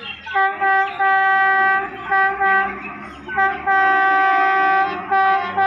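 Indian Railways electric locomotive horn sounding in a string of short toots and longer held blasts on one steady pitch, as an express approaches through the station.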